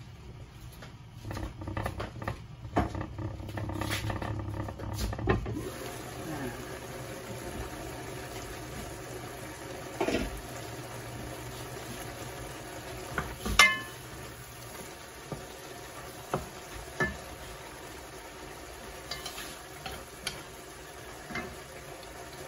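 Pan of shark fin melon stir-fry simmering and sizzling on the stove, with pan and lid clatter in the first few seconds and a sharp knock about halfway through. Near the end a wooden spatula clicks and scrapes as it stirs.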